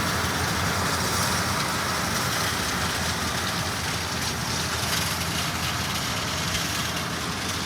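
LS MT573 tractor's diesel engine running steadily while pulling a John Deere 469 round baler at low speed through hay.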